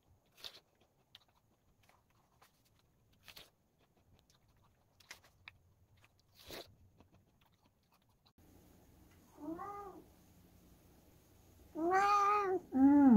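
A few crisp bites into an apple, a couple of seconds apart. Then a cat meows three times: a short meow about two-thirds in, followed near the end by a louder, longer meow and another right after it.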